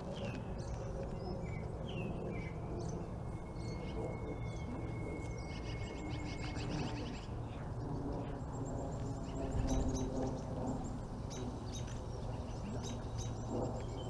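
Small birds chirping and calling off and on, with one long thin whistled note held for a few seconds early in the middle, over a steady low background rumble.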